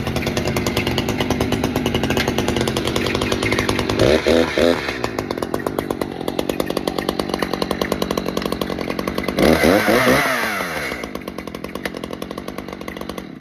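Echo CS-590 two-stroke chainsaw running at idle, revved up briefly about four seconds in and again for over a second about nine and a half seconds in before settling back to idle, as its newly tightened chain is tested; the sound stops abruptly at the very end.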